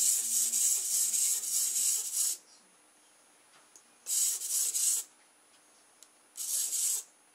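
Small spring-driven clockwork motor of a plastic Diplodocus kit whirring in three short spurts, a long one and then two shorter ones, with pauses between. The stiff-jointed toy is struggling to walk.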